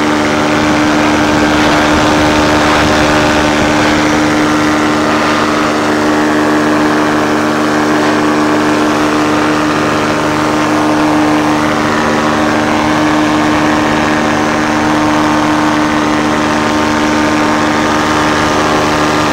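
Paramotor engine and propeller running steadily in flight: a loud, constant drone that holds one pitch.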